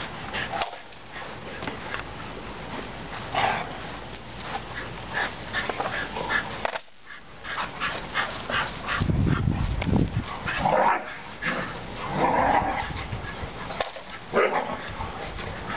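Dogs play-fighting: a standard schnauzer, a black Lab and a bull terrier wrestling together, with repeated short barks and yips coming in quick clusters.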